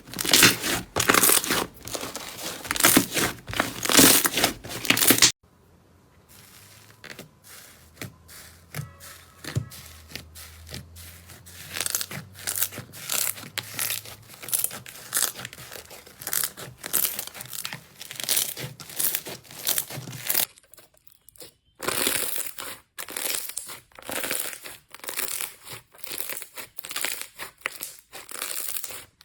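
Slime being squeezed and poked by hand, giving dense crackling pops and clicks. The sound cuts suddenly about five seconds in to a quieter run of softer clicks, then cuts again about twenty-one seconds in back to loud crackling.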